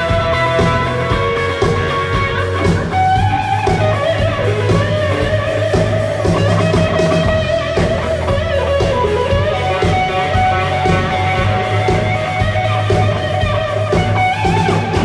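Rock band playing an instrumental passage live: an electric guitar plays a melody of long, sustained notes that slide and bend in pitch, over bass and drums.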